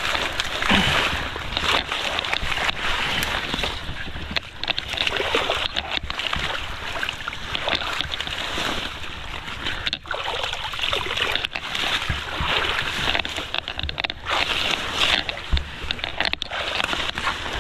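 Water rushing and sloshing through a hand-dug irrigation channel as it is cleared, with scattered knocks.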